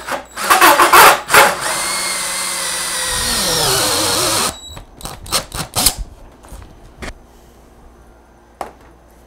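Cordless drill with a 2-inch hole saw cutting through a router base plate: a few short bursts, then a steady run of about three seconds whose pitch falls before it stops. A few knocks and clicks follow.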